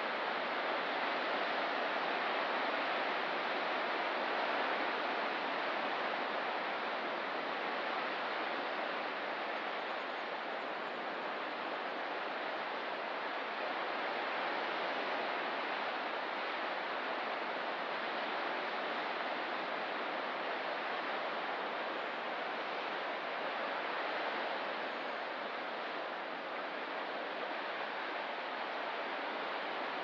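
Ocean surf making a steady, even wash, with no separate wave breaks standing out.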